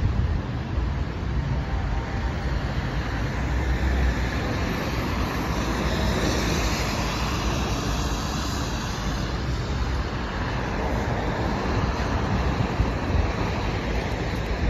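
Steady city traffic on a wet road: cars driving past with tyre hiss over a low rumble. About halfway through, a passing vehicle's hiss swells and fades.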